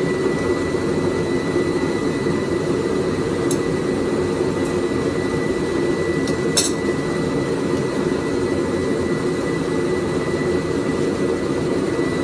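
Forge running: a steady rushing noise with a thin high whine. There is one sharp click about halfway through.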